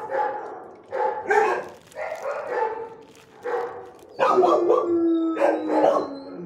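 Shelter dogs barking repeatedly in a kennel block, with one long, drawn-out howl-like note about four seconds in.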